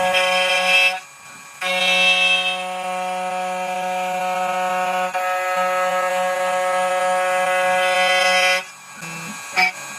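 A CNC key cutting machine's cutter spindle runs with a steady droning whine while milling a laser-cut HU83 key blank. It cuts out briefly about a second in, resumes, and stops near the end, followed by a few short sounds.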